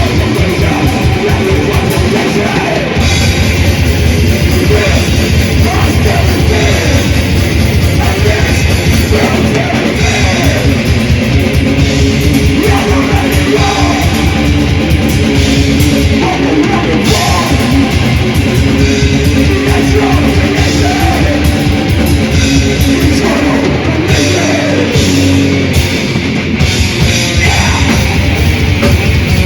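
Live death/thrash metal band playing loudly: distorted electric guitars and bass over fast, dense drumming.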